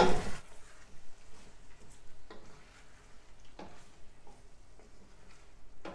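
A spoon stirring chopped tomatoes into meat frying in masala in a pot, with a faint sizzle and a few soft knocks of the spoon against the pot.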